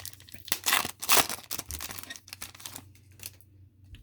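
Cardboard trading cards rustling and scraping as they are slid and flipped through by hand, a quick run of papery swishes that dies away near the end.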